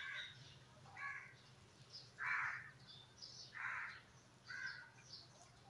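A bird calling: about five calls roughly a second apart, the two in the middle the loudest, with fainter high chirping between them over a low steady hum.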